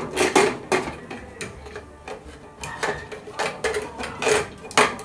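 Aluminium pressure cooker lid being fitted and twisted shut: a run of irregular metal clanks and scrapes, with a sharper clank just before the end.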